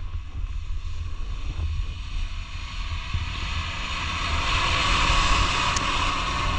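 Off-road vehicle under way, a low engine rumble with wind buffeting the microphone; a rushing noise grows louder from about halfway through.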